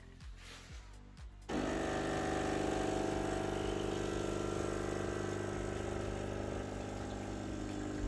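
De'Longhi Dedica espresso machine's vibratory pump starting about a second and a half in and running with a steady buzzing hum while espresso pours.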